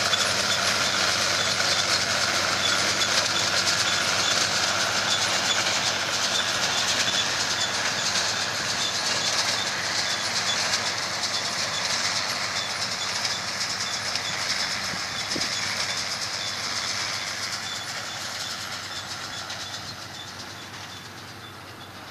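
Combine harvester running close by with tractors: a steady mechanical rattle and whir with a faint fast regular ticking, fading over the last few seconds.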